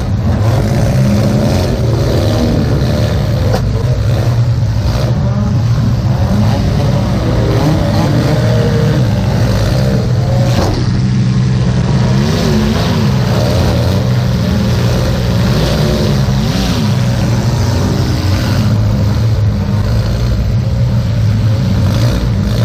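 Demolition derby car's engine running hard, heard from inside the stripped cab, loud and steady, with the revs rising and falling in the middle as the car is driven around the arena.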